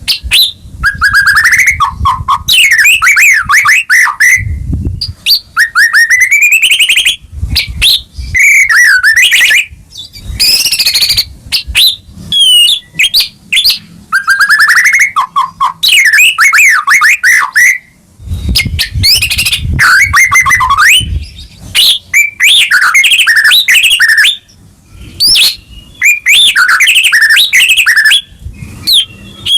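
White-rumped shama singing loudly and almost without a break, in long varied phrases of gliding whistles and rapid trills with short pauses between them: the full, excited 'gacor' song of a murai batu in top form.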